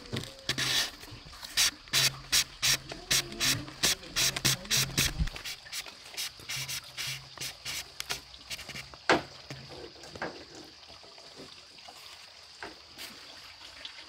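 A fast series of sharp knocks, about two to three a second for the first five seconds, then only a few scattered ones, over a faint steady high whine.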